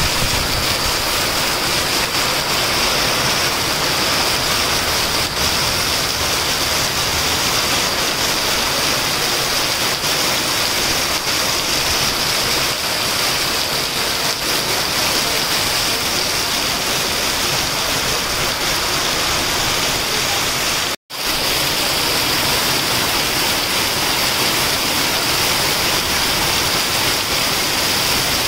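Heavy rain pouring down in a loud, steady hiss. The sound cuts out for an instant about three quarters of the way through.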